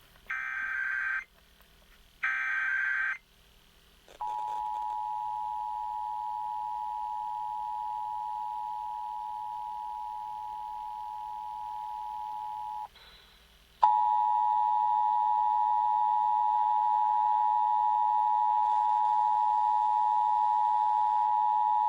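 Emergency Alert System test signal: two short bursts of the SAME digital header, then the steady two-tone EAS attention signal held for about nine seconds. After a brief gap it sounds again, louder, and runs on.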